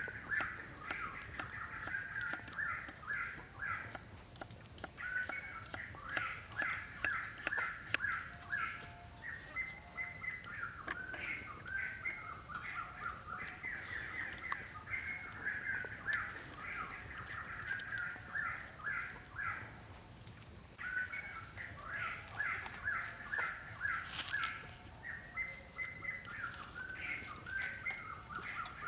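Forest ambience: a steady high-pitched insect drone, with birds calling and chattering almost continuously. Behind them comes the light tapping of a knife chopping vegetables on a wooden chopping block.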